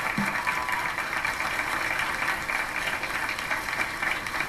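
Studio audience applauding steadily, heard through a TV set's speaker.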